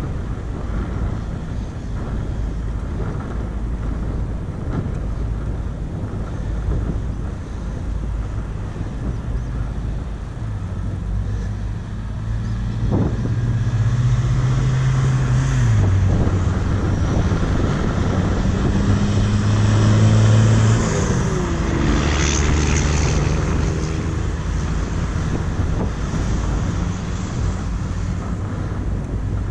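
Steady wind rush on the microphone from riding, with an engine drone building about a third of the way in, dropping in pitch twice and fading near the end as a motor goes by.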